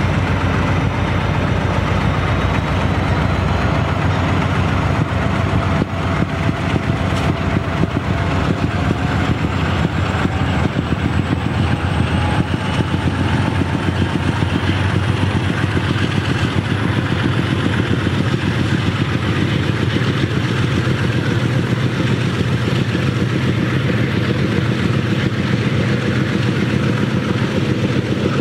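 Model Amtrak Genesis diesel locomotives' sound-decoder engine rumbling steadily as the model train rolls past, with the cars running along the track and a faint high whine slowly rising in pitch.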